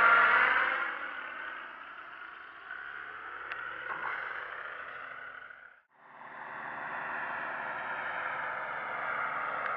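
Paramotor engine and propeller droning overhead, fading away over the first second as the craft flies off. After a short break near the middle, a steadier, more distant engine drone continues.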